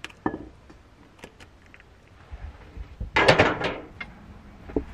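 Kitchen handling sounds: wooden chopsticks scraping and clinking against a wok as food is pushed into a bowl, a few light knocks, then a louder clatter lasting under a second about three seconds in.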